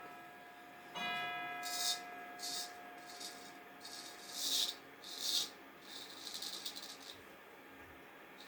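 A single ringing note with many overtones starts suddenly about a second in and fades over about two seconds, followed by about six short, scratchy scraping strokes.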